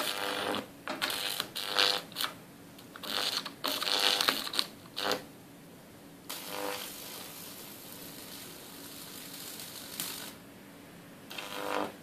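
High-voltage arc from a microwave oven transformer (about 2000 volts) burning across a microwave's control circuit board, crackling and buzzing in irregular bursts. It settles to a steadier hiss from about six to ten seconds in, then flares up again once near the end.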